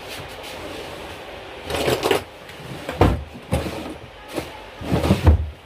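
Handling noise at a workbench: a few irregular clunks and rustles as things are picked up and moved, the loudest near the end.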